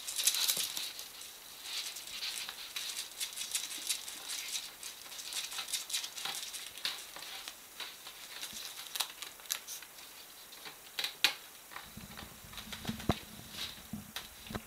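Prairie dogs scrabbling and tugging at a strip of grey tape on a plastic pipe: dense rustling and scratching with small clicks of claws and teeth, and a few sharper ticks near the end.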